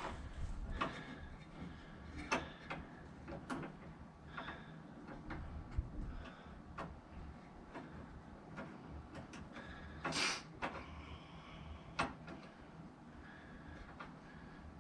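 Scattered small clicks and knocks of hand tools and small fittings being handled during a wiper motor installation, with a brief louder rushing scrape about ten seconds in.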